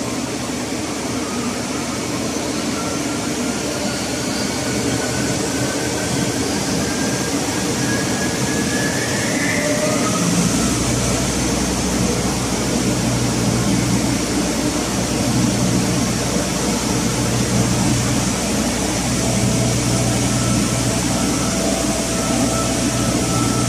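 Steady, loud running noise of an inert gas generator plant and its engine-room machinery. A faint whine rises slowly through the first ten seconds, then a deep low hum joins in and stays.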